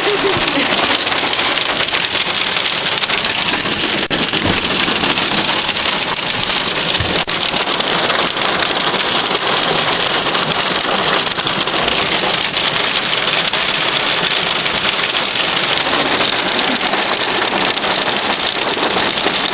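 Hail and heavy rain pelting the car and the pavement: a loud, steady, dense hiss full of many small sharp clicks.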